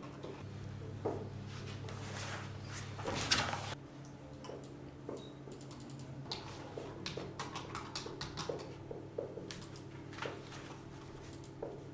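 Scattered small clicks of a computer mouse and keyboard over a steady low electrical hum, with a louder rush of noise from about two to three and a half seconds in.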